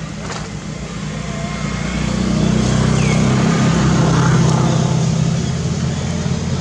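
Engine hum of a passing motor vehicle, low and steady, growing louder about two seconds in and easing off near the end. A short high chirp that falls in pitch sounds once, about three seconds in.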